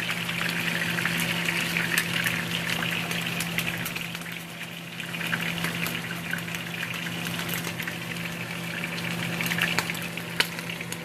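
Pork chunks frying in hot oil, a steady sizzle with many small crackles and pops, over a steady low hum.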